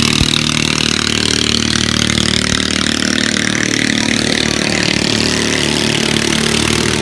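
Longtail boat engine running steadily: a loud, even drone.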